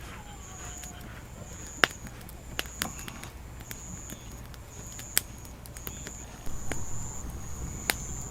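A grass insect trilling: a high, thin buzz repeated in phrases about once a second. A few sharp snaps or clicks come through now and then.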